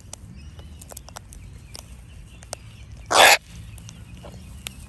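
Sulphur-crested cockatoos feeding on grass: faint scattered clicks, then a little over three seconds in one short, harsh screech.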